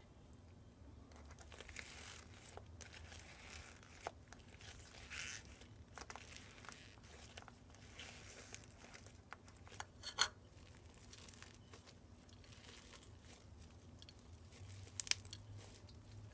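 Crunchy slime being squeezed and worked by hand, making soft crackling and crunching with scattered clicks. A few sharper pops stand out, the loudest about ten seconds in and two more near the end.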